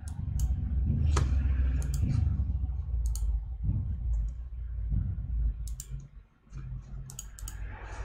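Sharp, irregular clicks of a computer mouse button, some in quick pairs near the end, over a low rumble.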